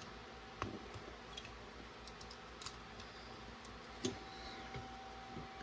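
Plastic LEGO bricks clicking and tapping as they are handled and pressed onto the model: a few light, sharp clicks a second or two apart over a faint steady hum.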